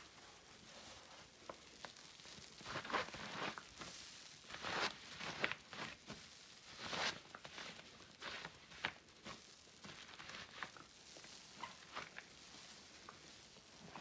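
A sponge soaked in floor cleaner being squeezed by hand: irregular wet squelches and crackling foam, with several louder squeezes in the middle.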